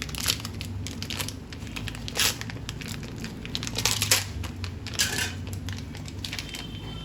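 A plastic packet of asafoetida being handled and opened, crinkling in irregular crackles with a few louder crunches, over a low steady hum.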